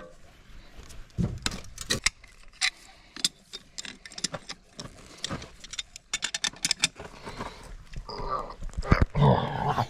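Irregular light metallic clicks and clinks of things being handled, with a louder knock about nine seconds in.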